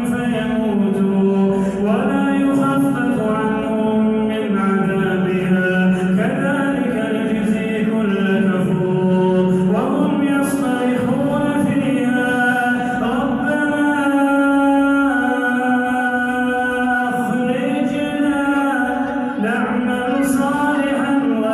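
A man reciting the Quran in a slow, melodic chant, with long held notes that glide up and down in pitch and short breaths between phrases.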